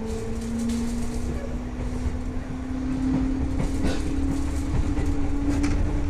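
JNR 201 series electric train with chopper control, heard from inside the car as it picks up speed. A motor whine rises slowly in pitch over a steady low rumble, with scattered clicks from the wheels on the track.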